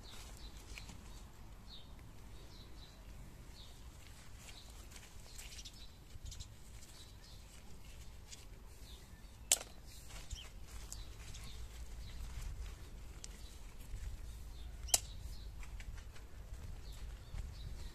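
Gloved hands pressing and crumbling loose garden soil around a seedling, a soft crackle of earth, with faint scattered bird chirps behind it. Two sharp clicks stand out, about halfway through and again about three-quarters of the way in.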